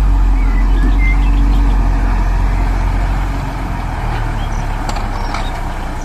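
Heavy diesel dump truck engine running steadily with a deep, even sound and no revving.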